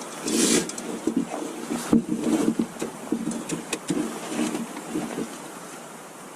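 Heavy-duty tarp rustling and crackling as it is handled, with irregular taps and wind noise on the microphone.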